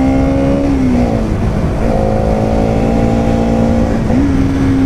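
Bajaj Pulsar NS200's single-cylinder engine pulling at steady revs while riding, heard from on the bike. The revs ease off around a second in, hold steady, then pick up again about four seconds in. A constant low wind rumble sits underneath.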